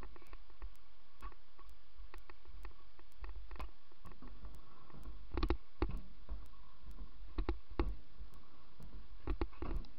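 Kick scooter rolling over skatepark concrete: a steady low rumble from the wheels, with scattered clacks and knocks. Louder clusters of knocks come about halfway, about seven and a half seconds in, and near the end.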